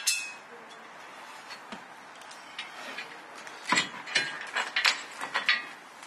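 Metal mounting bracket being handled and set into place with its bolt: a sharp click at the start, then a scatter of knocks and clicks about four seconds in.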